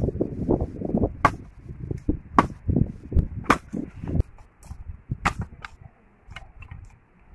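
Sharp wooden knocks of bamboo poles and sticks being struck and handled, about one a second, over a low rumble that fades after about four seconds; the knocks then thin out into faint clicks of sticks being moved.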